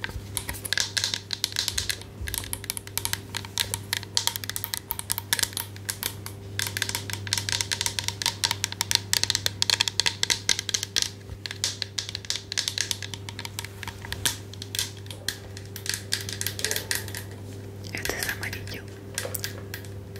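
Fast, dense tapping and scratching on an object close to the microphone, as an ASMR trigger, with short pauses between runs. A steady low hum runs underneath.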